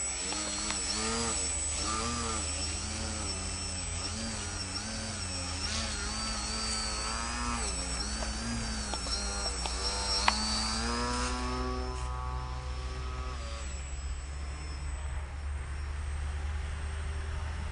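Parkmaster electric RC model airplane's motor and propeller whining overhead, the pitch rising and falling over and over, then fading about two-thirds of the way through as the plane moves off.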